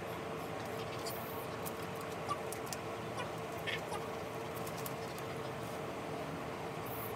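Steady background hum with a faint constant tone, broken by a few faint clicks and a couple of short, high squeaks about two to four seconds in.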